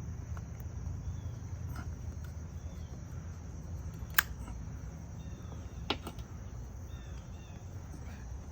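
Steady high-pitched drone of insects, with two sharp clicks about four and six seconds in.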